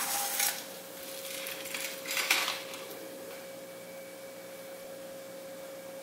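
A pizza slides from a frying pan onto a plate, then a wooden spatula scrapes across the plate as it lifts a slice: two short scrapes, the second about two seconds in. A faint steady hum runs underneath.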